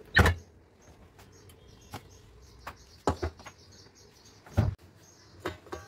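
Refrigerator door pulled open, with a sharp knock just after the start, followed by a few more knocks and clunks of things being handled at the fridge. Faint bird chirps in the background.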